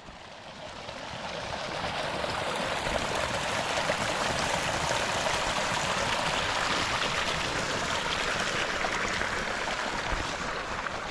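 Running water making a steady, even rush that fades in over the first two seconds.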